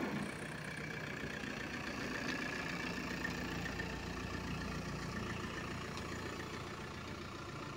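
A motor engine running steadily at idle, a low even hum over background noise.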